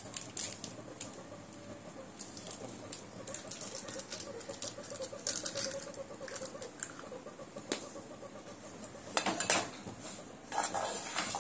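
Metal spatula scraping and clinking against a metal pan while stirring roasted gram flour in ghee. Scattered clicks run throughout, with a louder flurry of scraping near the end.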